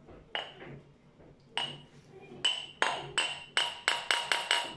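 Ceramic mugs clinking against a glass mixing bowl as they are knocked to empty out flour and salt: two separate ringing clinks, then a quickening run of about eight in the second half.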